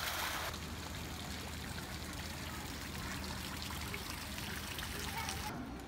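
Water pouring from a whale-tail sculpture fountain into its pool: a steady splashing hiss that cuts off shortly before the end.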